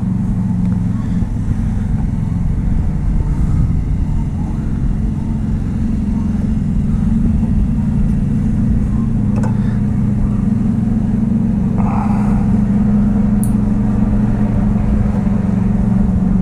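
A steady low mechanical hum runs throughout. In the second half it is broken by a few light clicks and a short scrape as a small tubing cutter is turned around a rusty steel fuel return pipe.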